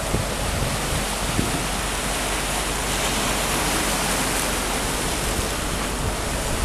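Steady rushing noise of wind buffeting the microphone, with low rumbling gusts underneath.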